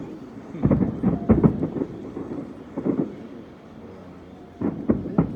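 Aerial fireworks shells bursting as a series of deep booms with rumbling echoes: a cluster about a second in, a single boom near three seconds, and a quick run of bangs near the end.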